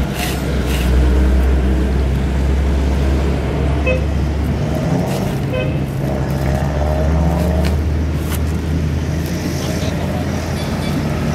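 Steady low engine rumble of motor traffic, with two short horn toots about four and five and a half seconds in.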